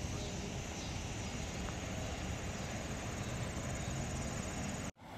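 Steady outdoor background noise, an even hiss with no distinct events, that cuts out abruptly for an instant near the end.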